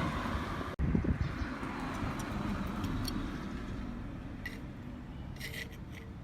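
Suzuki Cervo's engine and exhaust running through the muffler, which is being tested with a honeycomb flange silencer. The sound drops out for an instant about three-quarters of a second in, comes back with a louder burst, then slowly fades.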